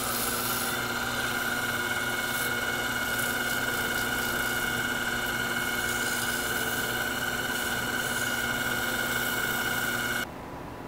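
Small benchtop lathe motor running at speed with a steady high whine, while 320-grit sandpaper held against the spinning wooden workpiece adds a hiss. The motor cuts off suddenly near the end.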